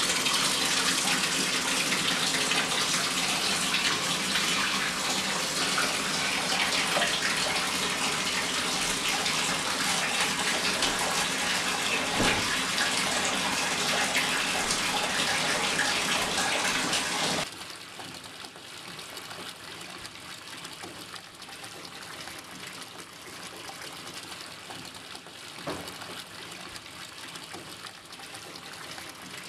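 A bath tap running into a bathtub: a steady rush of water. A little over halfway through it drops suddenly to a much softer, duller rush, with one faint knock near the end.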